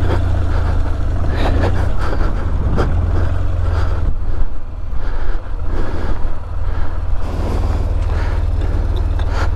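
BMW R1200GS boxer-twin engine running under load, with heavy wind rumble on the helmet-mounted microphone as the motorcycle works through deep sand. The level dips and comes back a few times in the middle as the throttle is eased and opened again, with scattered knocks from the bike jolting in the ruts.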